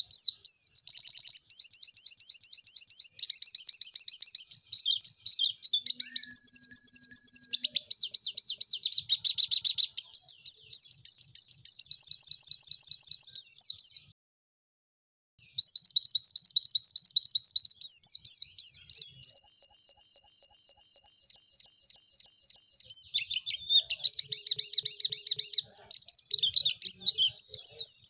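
White-eye (pleci) singing a fast, continuous song of rapid high chirps and trills. It breaks off for about a second and a half midway, then resumes.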